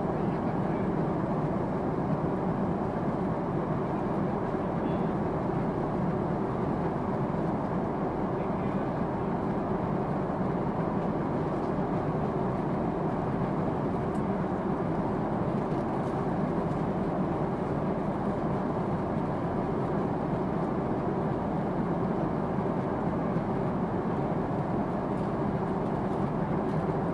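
Steady cabin noise of a Boeing 777-200 in cruise: engine and airflow rush heard inside the cabin, even and unchanging throughout.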